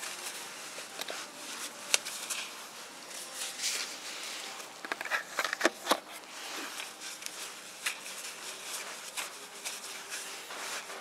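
Cloth rag rubbing and rustling over a plastic ignition coil and its rubber boot as it is wiped clean, with scattered light clicks and knocks as the plastic part is handled.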